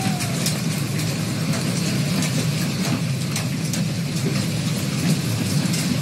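Heavy hailstorm: a steady loud rush of falling hail and wind, with scattered sharp ticks of hailstones striking.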